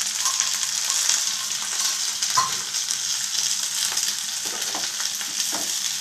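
Chopped onions sizzling steadily in hot oil in a kadai, with a few short clicks of a spatula against the pan as they are stirred, mostly in the second half.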